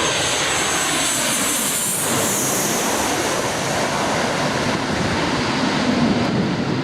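Jet airliner's engines running at high power as the aircraft passes, a loud steady rush with a high whine that drops in pitch about two seconds in.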